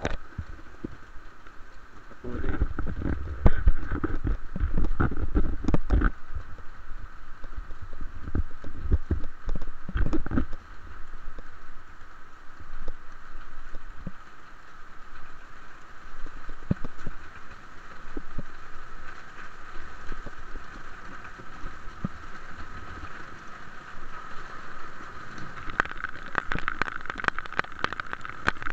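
Rain falling steadily, with many small drops ticking close to the microphone. Low rumbling on the microphone comes about two to six seconds in and again near ten seconds.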